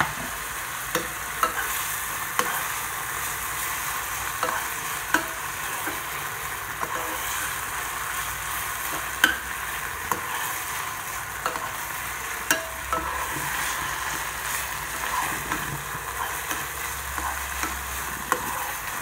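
Minced pork sizzling in a non-stick frying pan with soy sauce. A metal tablespoon stirs it, scraping and clicking against the pan at irregular moments over the steady frying.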